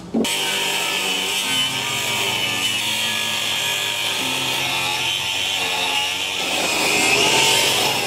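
Handheld power tool running steadily as it cuts into the boat's rotten engine cradle, its pitch shifting a couple of times as it bites.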